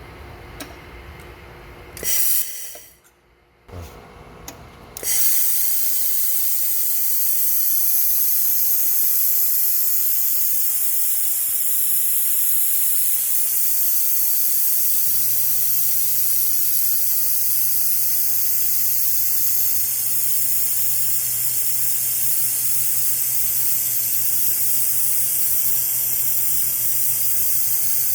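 Fiber laser welder running on 3 mm steel pipe: a loud, steady, high hiss of the weld and its gas flow starts about five seconds in. A low steady hum joins about halfway through.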